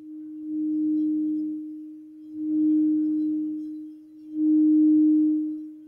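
Iridescent crystal singing bowl sung by rubbing its rim with a suede-covered mallet: one steady, low-pitched ringing tone that swells and fades about every two seconds as the mallet circles the rim.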